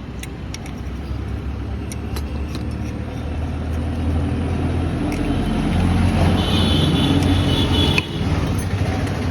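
A motor vehicle engine running, growing steadily louder over several seconds, then dropping off suddenly about eight seconds in.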